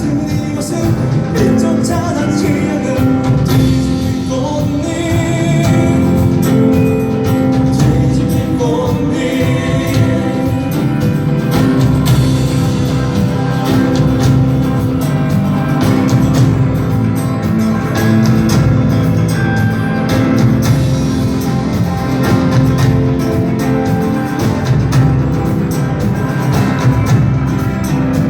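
Live rock band playing a passage between sung verses: drums, bass and guitars with a wavering lead melody line on top.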